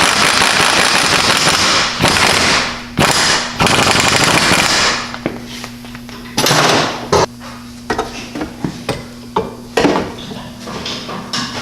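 Impact wrench rattling in a long burst and then two short bursts, working the suspension bolts, followed by scattered metal clanks and knocks of tools and parts.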